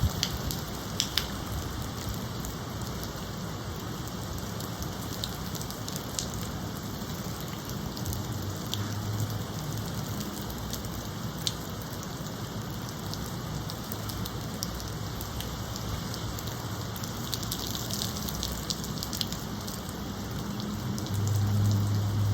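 Steady rain falling, with scattered sharper drop ticks throughout. A low rumble swells near the end.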